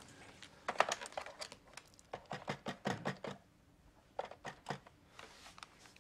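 Plastic CD jewel cases clicking and clattering as they are flipped through quickly in a stack, followed a little after four seconds in by a few separate clicks as a corded desk telephone is handled.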